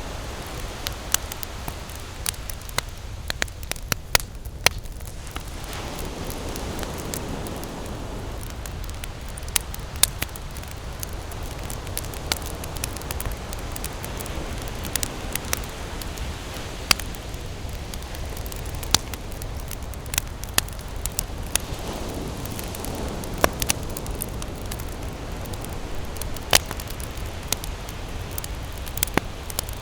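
Wood campfire crackling, with sharp pops at irregular intervals over a steady low rushing background.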